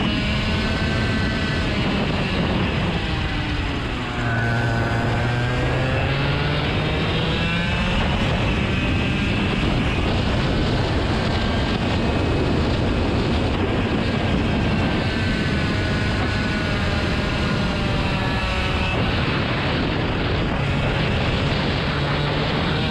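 An engine running loudly throughout, its note sinking and rising again several times.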